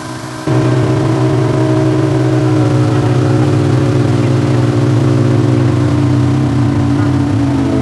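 Engine running steadily at an even pitch, after a brief drop-out just at the start.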